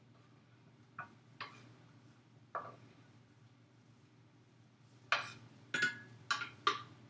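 A kitchen utensil knocking against a pot as chopped green onions are tipped in: three separate knocks, then four quicker ones near the end. A low steady hum runs underneath.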